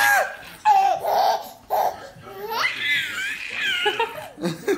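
A baby and a man laughing together: short breathy laughs first, then the baby's high, wavering squeals of laughter from about two and a half seconds in.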